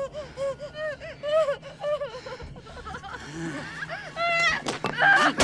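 A wounded woman's choked whimpering gasps, short rising-and-falling cries repeating two or three times a second, with a longer higher cry about four seconds in. A loud, sharp burst comes near the end.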